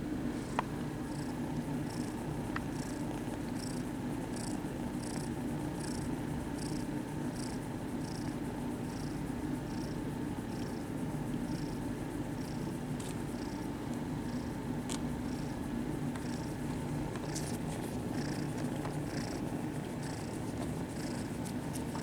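Domestic kitten purring steadily, with a soft swishing sound repeating about twice a second.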